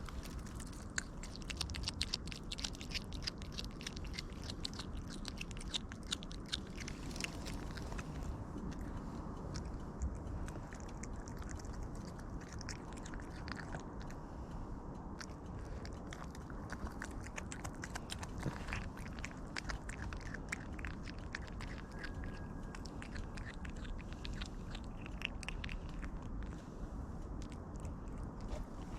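Cat chewing and biting into meat: a steady run of small crunching clicks, thickest in the first several seconds.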